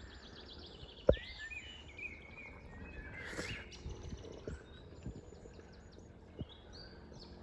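Birds singing and chirping in quick trills and repeated calls, with one sharp knock about a second in.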